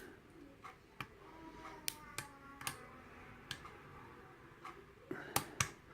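Light, irregular metallic clicks of a hook pick working the pin tumblers of an Ilco lock cylinder under tension, about eight or nine ticks with two close together near the end, as pins are lifted and set at the shear line.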